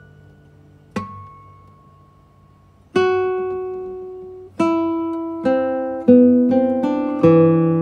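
Slow instrumental music on a plucked string instrument: single notes that ring and fade. There is a quiet note about a second in, then louder notes from about three seconds in that come closer and closer together.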